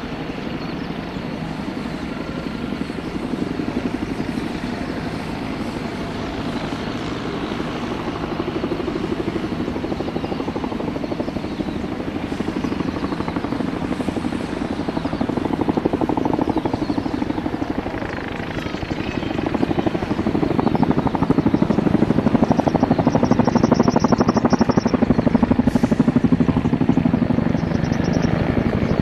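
A rotorcraft flying with a steady rapid chop from its rotors. It grows louder over the last third.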